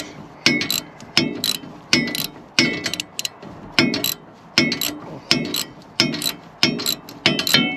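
Socket wrench being worked in short strokes to tighten a snowblower shear bolt, metal banging with a brief ring about every 0.7 s.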